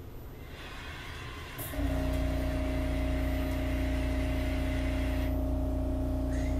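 Onboard machinery of a stopped SEPTA Market-Frankford Line subway car switches on about two seconds in. The level steps up suddenly to a steady hum over a low rumble.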